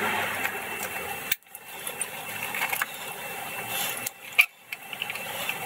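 Cloth rubbing and scraping over the metal terminal box cover of an electric motor, with small metallic clicks of handling and tools. The rubbing stops sharply about a second in, then resumes with more scattered clicks.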